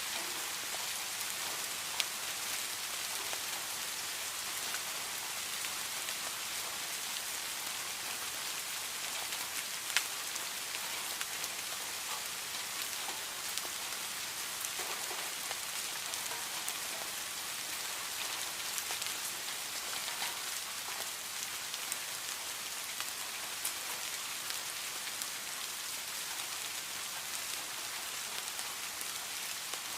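Heavy rain falling steadily, an even hiss of drops, with a few sharper individual drops striking, the clearest about ten seconds in.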